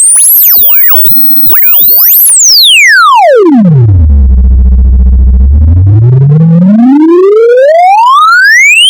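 Speaker-cleaning sine tone sweeping in pitch. It starts very high, glides down to a deep hum held for about a second and a half, then climbs steadily again.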